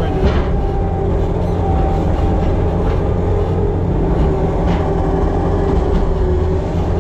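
Engine of a farm machine running steadily at constant speed: a low rumble with a steady hum over it.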